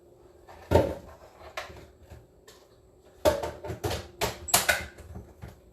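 Kitchen clatter: one sharp knock about a second in, then a run of clunks and knocks between about three and five seconds in, as kitchenware is handled.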